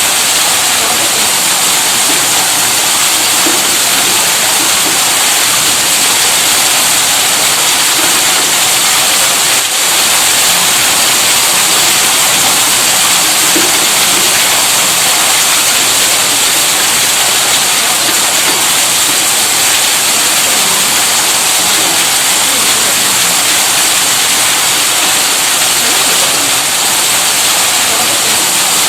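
Electric tube well pump running steadily, giving an even, unbroken rush like gushing water.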